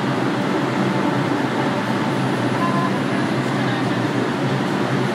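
Steady subway station din: the low rumble of a train at the platform, with people's voices mixed in.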